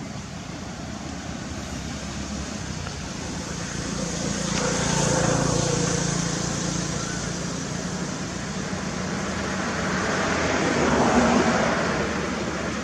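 Road traffic: motor vehicles passing, one swelling up and fading about five seconds in, a second passing near the end.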